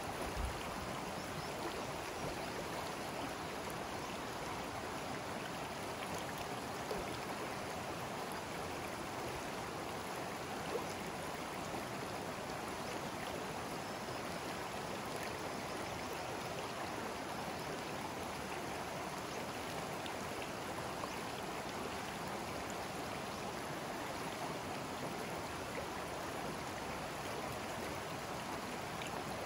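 Forest stream running over rocks: a steady rush of flowing water.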